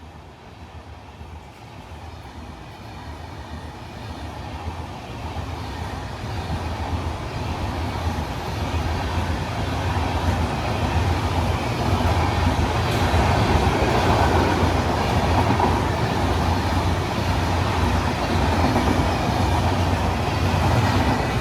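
A passing train on Indian Railways: wheel and rail noise grows steadily louder over about twelve seconds as it approaches, then stays loud as the train runs past.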